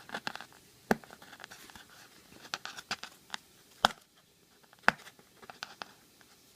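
Hands picking and tearing at the packing tape and cardboard of a shipping box, with scattered crinkles and a few sharp clicks, the loudest about a second in, near four seconds and near five seconds.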